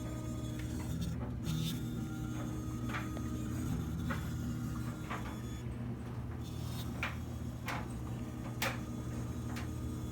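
Low buzzing vibration from a hot Vespa GTV 300ie scooter with its engine switched off, which the owner thinks is coolant going through the thermostat. A clothes dryer clanks irregularly over it, a dozen or so sharp knocks.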